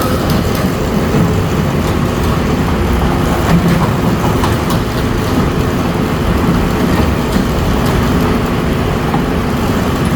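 LiftMaster Elite Series garage door opener running steadily as it moves the door, with a motor hum and mechanical rattle that start with a click.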